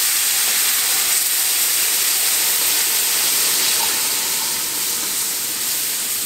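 Roast pan juices poured into a skillet of hot, caramel-brown oil-and-flour roux, hissing and sizzling loudly as they flash to steam. The hiss holds steady, then eases slowly in the second half.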